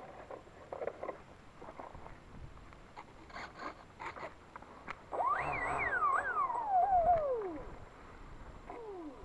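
Scattered handling clicks and rustles, then about five seconds in an RC airplane's motor and propeller whine up high, wavering, and fall steadily in pitch over about two and a half seconds, with a second short falling whine near the end.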